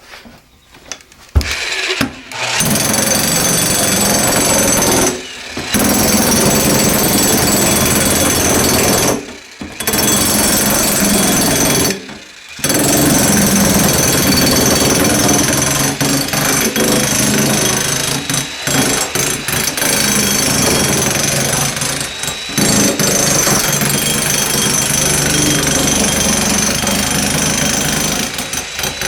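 Bosch jack hammer pounding a heavy 48 oz copper sheet to form a deep bowl: a loud, fast, continuous rattle of blows on the metal. It starts about two seconds in and stops briefly three times before running on.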